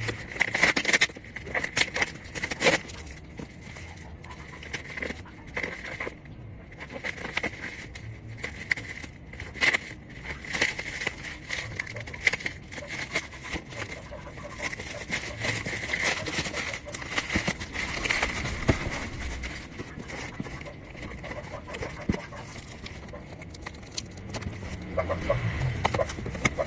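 Small handheld cordless vacuum cleaner switched on and running with a steady high whine, with many clicks and scraping sounds as it is worked over a surface.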